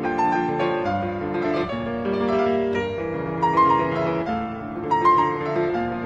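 Slow instrumental background music with held notes. The melody makes a quick turn twice, about halfway through and again near the end.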